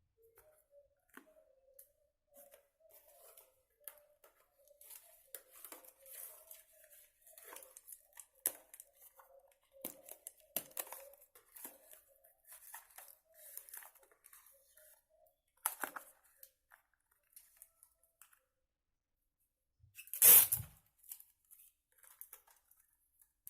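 Scissors cutting and material being torn and handled in a small room, a run of small snips and rustles, with one much louder tearing rustle about twenty seconds in.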